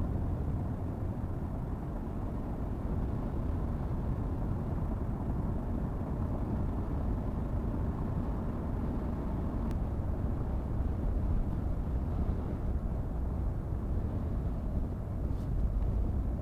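Steady low rumble of a car driving, road and tyre noise with no clear engine note.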